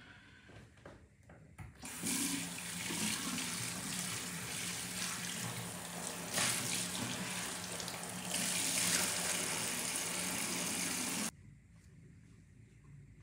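Tap running into a bathroom sink: the water is turned on about two seconds in, the flow changes a couple of times, and it is shut off abruptly about nine seconds later.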